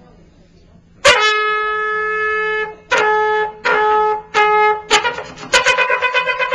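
Solo trumpet played close to a microphone. After about a second of room hush comes one long held note, then three shorter notes at the same pitch, a very brief note, and a fast run of rapidly repeated notes near the end.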